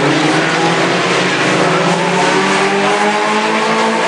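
Several mini-truck race engines running hard at once as the trucks race, their overlapping engine tones sliding up and down in pitch.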